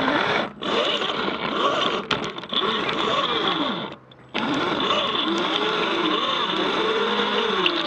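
3D-printed RC rock crawler's electric motor and gear train whining, the pitch rising and falling with the throttle. It cuts out briefly about half a second in and again for a moment about four seconds in.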